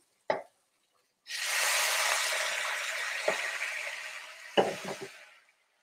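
Water splashed into a hot pan of zucchini pasta sauce, setting off a loud sizzle that starts suddenly and dies down over about four seconds. A knock comes before it, and a few pan and utensil clatters come as it fades.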